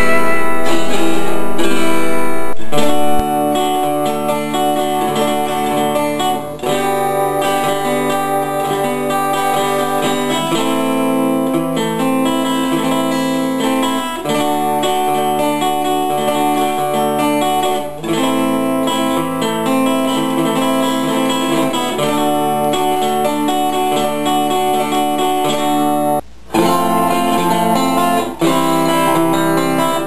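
Instrumental guitar rock piece, live guitar played over pre-recorded guitar riffs. It drops in level about three seconds in and breaks off briefly near the end.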